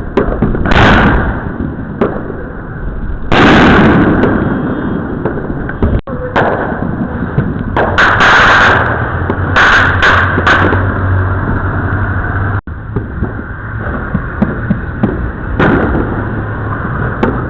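Neighbourhood fireworks going off: a rapid run of bangs and crackling reports, some single and some in quick clusters. The biggest blasts come about three and a half seconds and eight seconds in.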